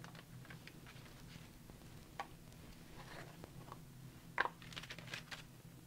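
Faint tabletop handling noises: scattered small clicks and taps, with a sharper click about four and a half seconds in and a few quick clicks just after, as a pot of embossing powder is opened and handled. A faint steady hum runs underneath.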